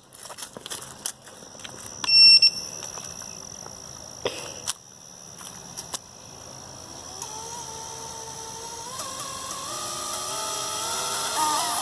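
JHE42B finder buzzer on an FPV quad gives one loud, short, shrill beep about two seconds in. Through the second half a vehicle's engine grows louder and rises in pitch as it approaches.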